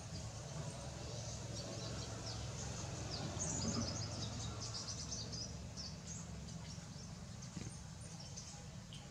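Small birds chirping in the background: many short, high chirps, busiest around the middle, over a low steady hum.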